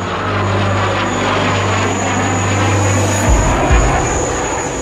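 F-16 fighter jet flying past, its engine a steady rushing noise with a thin, steady high whine.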